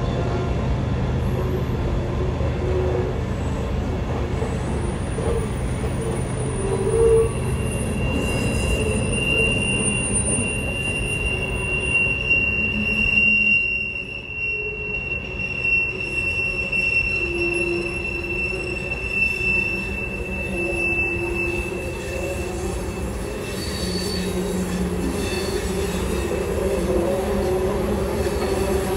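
Freight cars of a Herzog ballast train rolling past with a steady rumble of steel wheels on rail. The wheels squeal, with a long high squeal through the middle and lower squeals coming and going.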